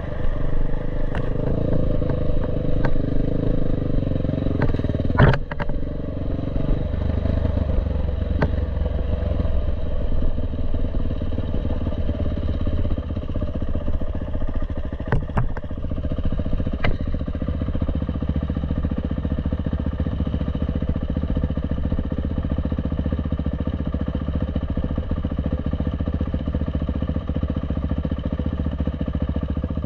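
Dirt bike engine running at low speed over a rocky trail, heard from the rider's helmet, with several sharp knocks and clatter, the loudest about five seconds in. In the second half the engine settles to a steadier, even drone.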